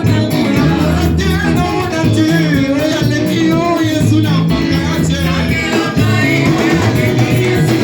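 Church worship music: singing over a band with a steady bass line, continuing without a break.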